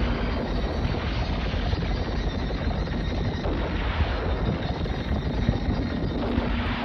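Steady rumbling wind noise buffeting the phone's microphone in an open desert.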